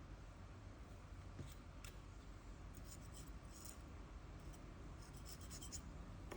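Faint light scraping and small clicks of small hand tools working on an iPhone X, in scattered clusters of quick ticks.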